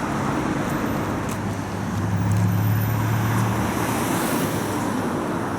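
Road traffic on a city street: a motor vehicle passes close, its low engine drone swelling and loudest from about two to three and a half seconds in, over a steady traffic hum.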